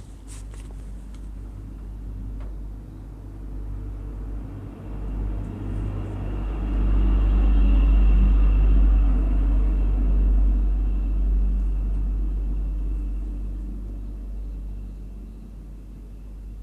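A low rumble that swells over several seconds, is loudest about eight seconds in, then slowly fades, over a steady low hum.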